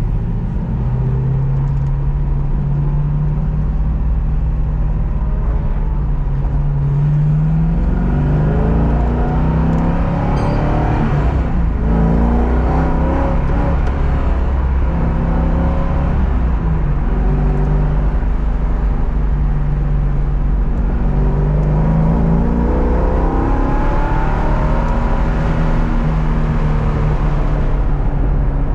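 A car engine being driven hard on a track: it revs up repeatedly, with the pitch stepping down between climbs as it shifts gears or lifts off, over a steady low rumble.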